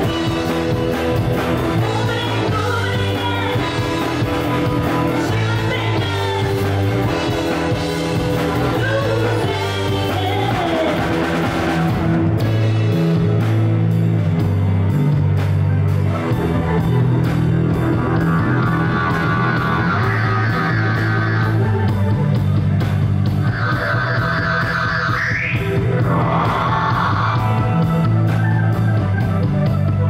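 Live funk jam band playing: a woman sings over electric guitar, bass guitar, drums and keyboard for about the first twelve seconds. Then the vocals drop out and an electric guitar leads an instrumental passage, with a long rising note bend a few seconds before the end.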